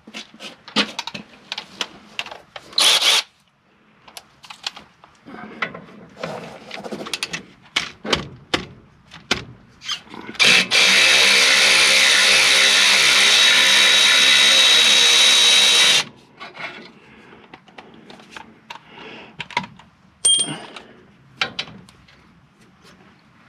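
Metal tools clinking and knocking, then a handheld power tool runs steadily for about five seconds before stopping abruptly, loosening the front brake caliper bolts. More tool clinks follow.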